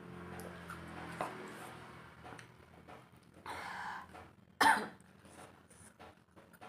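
A person coughs: a breathy rasp about three and a half seconds in, then one sharp, loud cough just before five seconds in.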